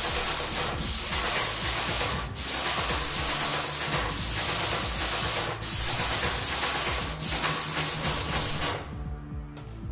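Werku airless paint sprayer spraying matte plastic paint onto a ceiling: a loud, even hiss from the gun in passes of about a second and a half. Each pass is cut by a brief break as the trigger is released between passes, with a longer break near the end.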